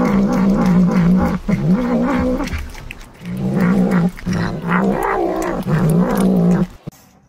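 A tabby cat making a low, wavering vocal sound while it eats wet cat food, in several long stretches with short breaks, stopping shortly before the end.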